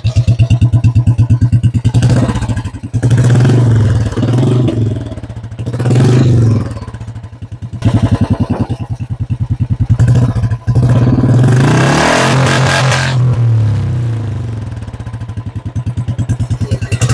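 Royal Enfield Classic 350's single-cylinder engine, breathing through a free-flow C-bend pipe and an aftermarket replica silencer, idling with an even thump and revved in a series of throttle blips, the longest about twelve seconds in.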